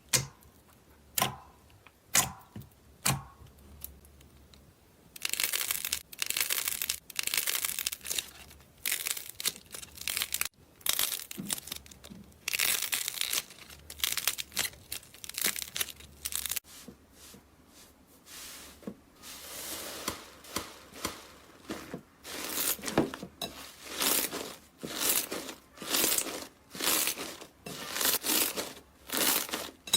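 Slime being squeezed and pressed by hand. A few sharp pops about a second apart open it, then come long runs of tiny rapid clicks, then a steady squish-and-release about once a second near the end.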